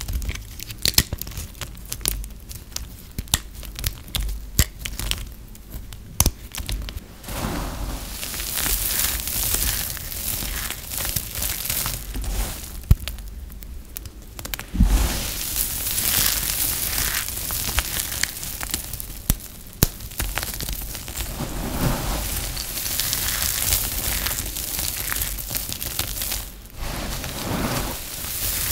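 Crisp, dry recycled soap being cut and snapped with a knife: a run of sharp separate cracks and clicks. From about seven seconds in, hands crush and stir through a pile of dry soap shavings, a continuous crunching, briefly broken off about halfway and again near the end.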